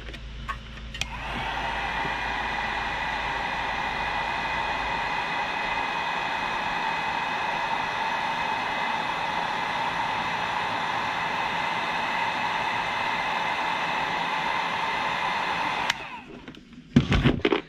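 Heat gun running steadily, blowing hot air onto a fuel line to soften it for a tight fit. The steady blowing has a fixed whine. It is switched on about a second in and cuts off near the end.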